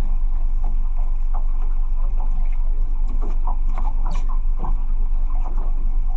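Fishing boat's motor running with a steady low drone, with a few short knocks and faint voices on deck.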